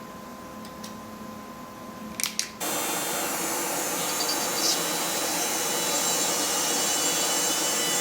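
A machine with a small motor hums quietly at first, then after a couple of clicks about two and a half seconds in it runs with a loud, steady rushing noise.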